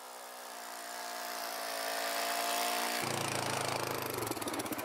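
Yamaha Grizzly 700 ATV's single-cylinder engine running, growing steadily louder as it approaches. About three seconds in it passes close by, with a deeper, fast-pulsing note.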